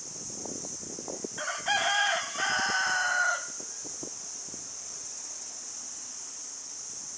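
Rooster crowing once: a single cock-a-doodle-doo lasting about two seconds, starting about a second and a half in.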